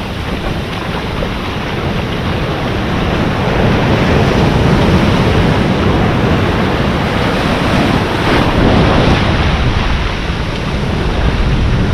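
Ocean surf washing on the shore, with wind buffeting the microphone. The wash swells louder about four seconds in.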